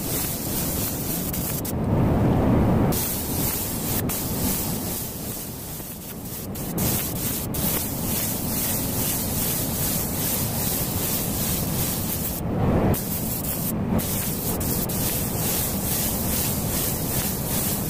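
Replica DeVilbiss GTI Pro spray gun hissing steadily as it sprays metallic base coat on a car body. The hiss stops briefly about two seconds in, under a louder low rumble, and again shortly for a moment later on.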